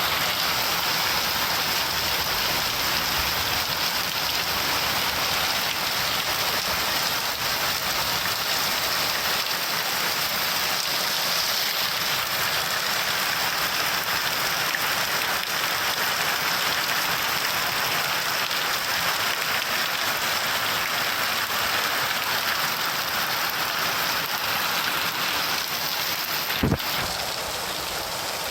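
Steady rain falling, an even hiss that stays at one level, with one brief low thump near the end.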